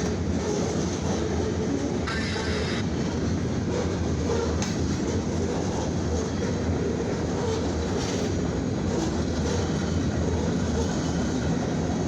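Freight cars of a long grain and mixed freight train rolling past at about 34 mph, with steady wheel and rail noise. A brief higher hiss comes about two seconds in.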